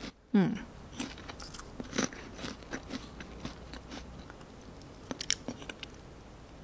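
Close-up chewing and crunching of a mouthful of ice cream with crunchy bits, with scattered crisp crunches that bunch together about five seconds in. A short hummed 'mm' of the voice comes just after the start.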